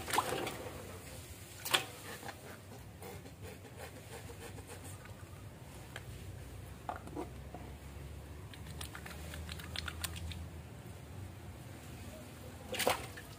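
Small splashes and clicks of water in an aluminium basin as a wet puppy is washed by hand, with one sharper click about two seconds in and another near the end.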